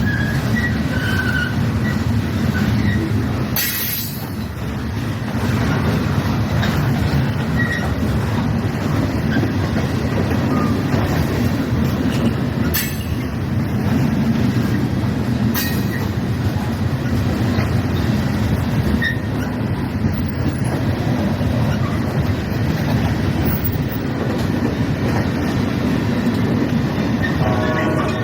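Freight train rolling past: a steady rumble of wheels on rail, with a few sharp clicks of wheels over rail joints and short high wheel squeals.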